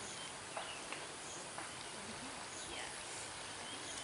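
Quiet rural outdoor ambience with faint scattered bird calls and insect chirps. One short bird call falls in pitch about two thirds of the way through.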